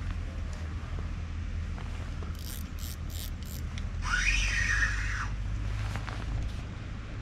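Casting a feeder rod: a few short scratchy handling sounds, then about four seconds in a single swish of line whizzing off the reel, rising then falling in pitch for about a second. A low steady rumble lies underneath.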